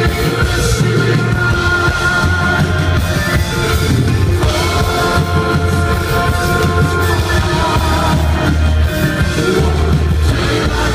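Live rock band playing, heard from the audience: drum kit, electric guitar and bass under a man's lead vocal, with long held notes over a steady bass.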